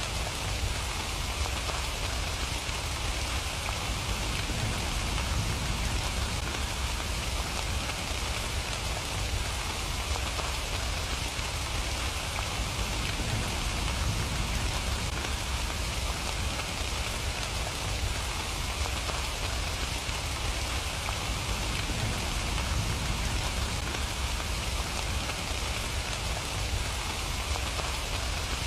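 Steady rain falling without a break: an even hiss with a low rumble underneath.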